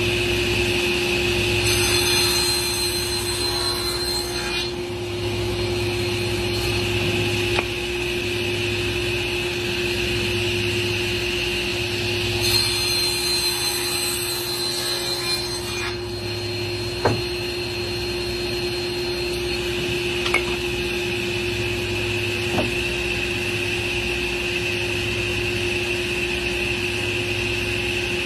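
An electric woodworking power tool running steadily with a constant whine. Twice, for a few seconds each, it cuts into wood, adding a harsher high hiss. A few sharp knocks come in between.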